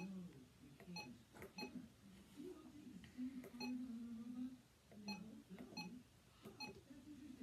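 RadioShack 12-262 weather alert radio giving short electronic key beeps as its buttons are pressed through the setup menu, about one beep a second at uneven spacing, with quiet muttering underneath.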